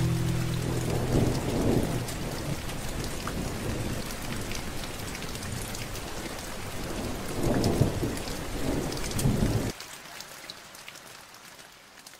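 Steady rain falling, with a low roll of thunder about a second in and a longer one around eight seconds in. The sound cuts off suddenly near the end, leaving only a faint hiss.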